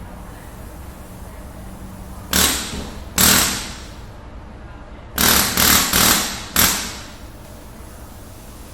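Six sharp loud bangs over a steady background hiss: two about a second apart, then four in a quicker run, each dying away briefly.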